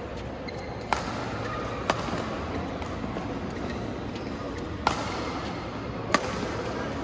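Badminton rackets striking a shuttlecock in a singles rally: four sharp hits, the first two about a second apart, then a gap of about three seconds, with the last hit made from a jump. A steady hall hum runs underneath.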